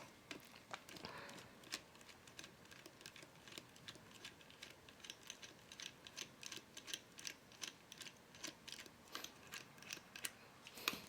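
Faint, repeated small clicks and ticks of a Phillips screwdriver backing a small screw out of a security camera's housing, a few clicks a second, with a louder click near the end.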